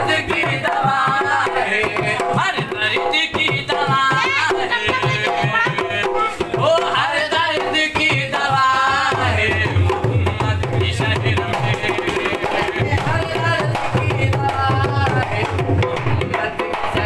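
Two hand-played barrel drums beating a fast folk rhythm, with deeper bass strokes coming steadily from about halfway through. A voice sings a melody over the drumming.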